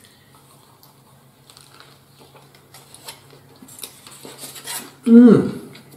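Light clicks and rustling of food being handled over a plate and its aluminium-foil wrapper, louder about four seconds in, over a faint steady hum. A man's voice starts near the end.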